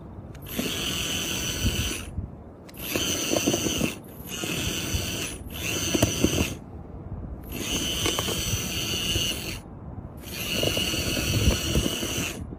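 Kabolite K961-100 1/18 hydraulic RC excavator's electric hydraulic pump whining in about six bursts of one to two seconds, with short pauses between, as the boom and bucket are worked.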